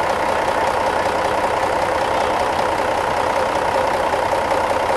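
Steady engine noise that stays even and unchanging throughout.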